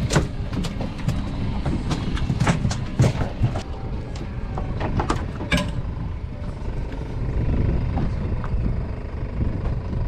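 Steady low rumble of a boat at sea, with a run of sharp clicks and knocks through the first half that stops a little past the middle.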